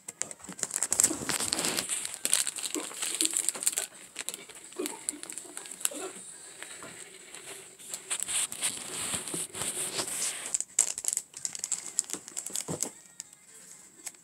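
Plastic packaging bag crinkling and rustling as it is handled: an irregular run of sharp crackles that thins out and stops near the end.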